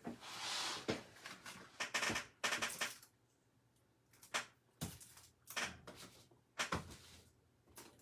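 Plastic card sleeves and top loaders being handled and set out on a tabletop: a string of irregular rustles and light clacks with short pauses between them.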